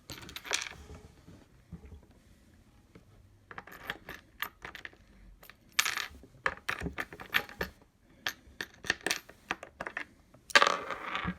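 Light, irregular metallic clicks and clinks: a screw tapping and scraping against the metal frame of a Hover-1 Buggy as it is fumbled toward a hole that cannot be felt. A louder burst of rustling handling noise comes near the end.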